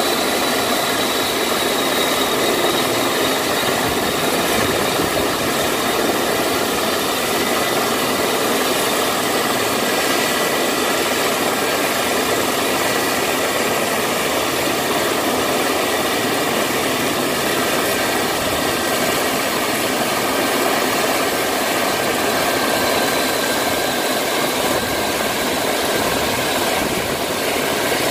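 Small helicopter's turbine engine running at idle on the yacht's helipad, a steady, unbroken rush of noise with a faint high whine and no clear blade beat.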